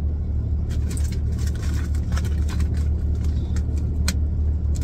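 A padded bubble mailer crinkling and crackling in the hands as it is opened, over the steady low rumble of a semi-truck's diesel engine running in the cab.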